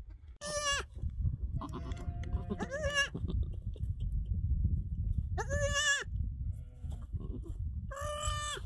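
Newborn goat kid bleating: about five short, high-pitched bleats a second or two apart, over a low rumbling noise.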